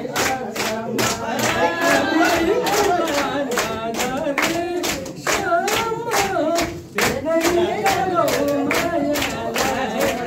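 A group of people singing together while clapping in a steady rhythm, about three claps a second, with a brief pause about two-thirds of the way through.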